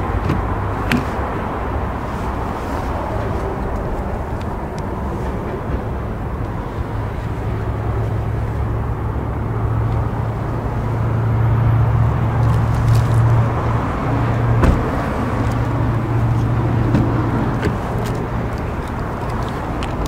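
Engine idling with a steady low hum that grows louder in the middle. A few sharp clicks and one thud come from a car door being opened and handled.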